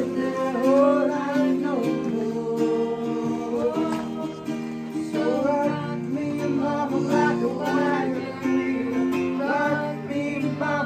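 Acoustic guitar strummed live, with a voice singing the melody without words.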